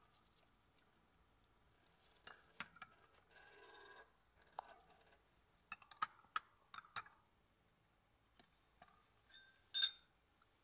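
Metal spoon and fork clinking and scraping against a glass jar and a ceramic bowl: a scatter of light clicks and a short scrape, then one brighter ringing clink near the end.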